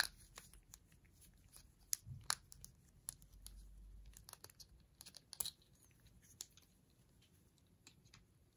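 Faint clicks and rustling as gloved hands handle a clear plastic tap case, opening it and sliding a spiral tap out. The sharpest clicks come near the start, about two seconds in and about five seconds in.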